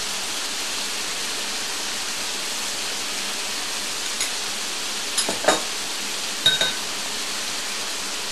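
Beef liver sizzling steadily as it fries in oil in a pan, with a few ringing metal clinks of a spoon against the pan, the last two in quick pairs.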